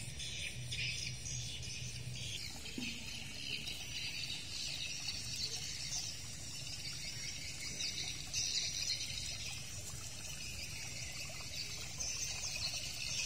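Water splashing and trickling steadily from a tiered garden fountain.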